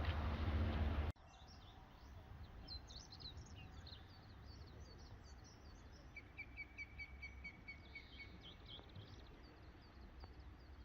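Small songbirds chirping with high, thin calls, including a quick run of about ten even notes in the middle. This follows about a second of louder low noise that cuts off abruptly.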